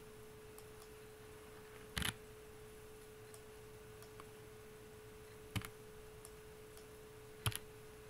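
Three short, isolated clicks at a computer, about two, five and a half and seven and a half seconds in, over a steady faint single-pitched hum.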